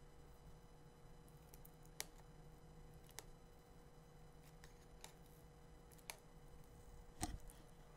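Near silence broken by about five faint, sharp clicks a second or so apart, the strongest near the end, from fingers prying at the glued-in battery of a 2015 MacBook Pro.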